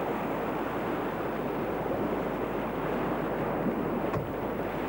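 Steady rushing noise, with a faint click about four seconds in.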